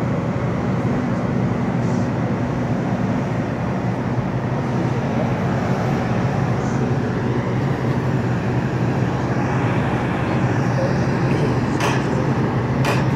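Steady low drone of a cruise ship's engines running as the vessel is under way, with a rushing noise over it and a few brief knocks near the end.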